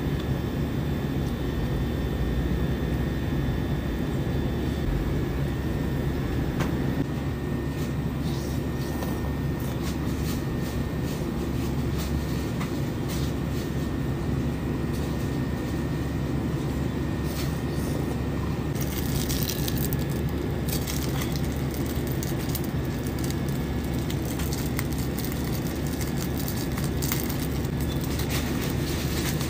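Steady low rumble of running machinery with a faint high whine through it. Brief papery rustles come near the end as a snack wrapper is handled.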